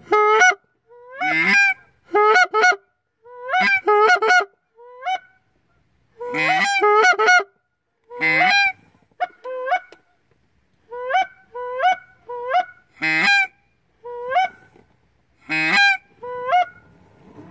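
Goose call blown by a hunter: loud honks and clucks in quick clusters of two to four notes, each note breaking sharply upward in pitch, with short pauses between the clusters. It is calling to geese circling overhead to draw them in.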